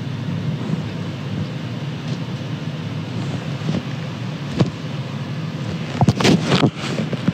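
Steady low hum of room noise, with a click a little past four seconds in and a burst of rustling and knocking about six seconds in as the phone is handled and moved.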